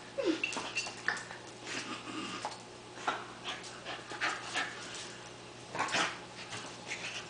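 Scottish terrier whimpering in short high whines, mixed with quick clicks and scuffs, with a louder burst about six seconds in.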